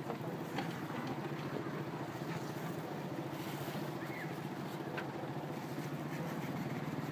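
A steady low engine hum that keeps an even pitch, with a few faint ticks and taps over it.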